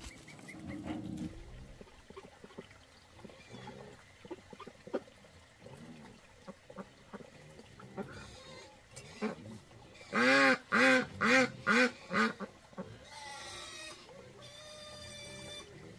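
A duck quacking loudly, about six quacks in quick succession midway through, with fainter bird calls after. Before that, light knocks of hollow concrete blocks being set down.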